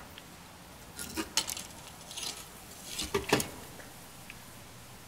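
A bicycle being lifted and handled, its metal frame and parts clattering and rattling in two short bursts, about a second in and again around three seconds in.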